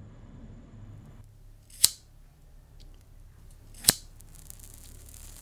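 Cigarette lighter struck twice, two sharp clicks about two seconds apart, with a faint hiss after the second as it lights.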